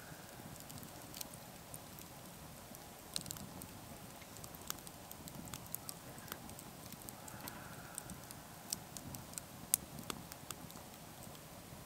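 Wood campfire crackling, with sharp pops and snaps at irregular intervals over a faint steady background.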